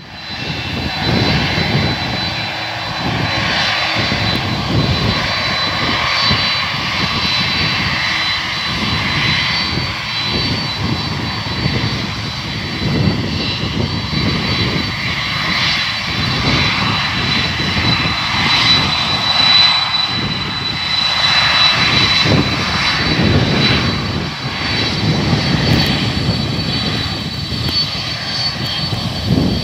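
Condor Boeing 767-300ER twin jet engines running as the airliner moves along the runway: a loud, steady rumble with a thin, high whine held above it.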